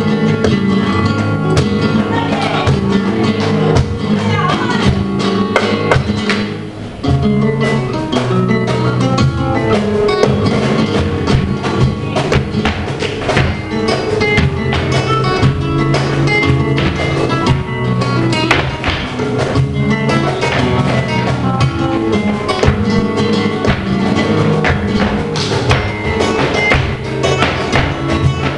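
Live flamenco guitar playing a lively rhythmic piece, with many sharp percussive taps over it.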